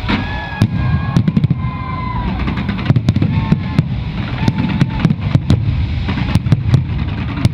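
Aerial fireworks going off in a rapid string of sharp bangs over a continuous low rumble of booms, with short whistling tones between the bangs.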